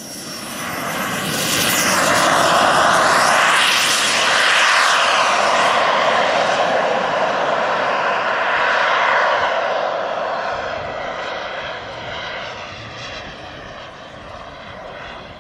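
Turbine jet engines of a large RC scale Concorde model running at high power as it climbs away. A roar with a whistling whine that bends in pitch in the first few seconds, loudest for several seconds, then gradually fading with distance.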